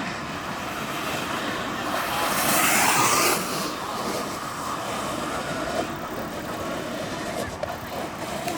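Freeboard riding: wheels rolling on pavement and wind on the microphone, a steady rushing noise with a louder hissing surge about two to three seconds in.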